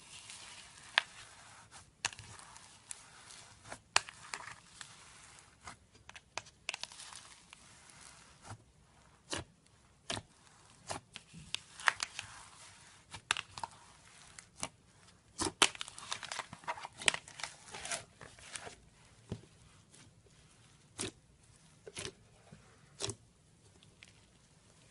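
Slime being squeezed and stretched, giving irregular sharp pops and clicks with stretches of crackling. The pops come thickest in the middle and thin out near the end.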